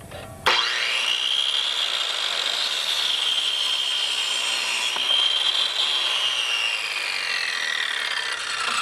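Black & Decker electric miter saw switched on about half a second in, its motor whine rising quickly to speed, then the blade cutting through a 2x4. Near the end the whine falls as the motor winds down.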